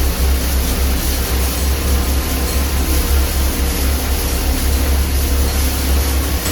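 Copper wire nugget plant running: a loud, steady machine noise with a heavy low hum under a dense grinding and rushing haze.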